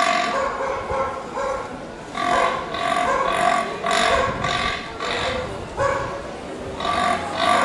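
A man imitating a rutting fallow deer buck's call, made with the hands cupped at the mouth: runs of short belching grunts, about two a second, broken by two short pauses.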